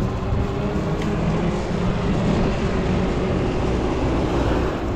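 Steady riding noise from a fat-tire e-bike on the move: wind on the microphone and tyre noise, with a faint steady hum running underneath.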